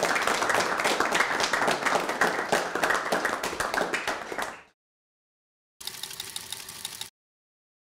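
A small audience applauding, many hands clapping, fading out about four and a half seconds in. A short, faint sound with a steady tone follows near the end.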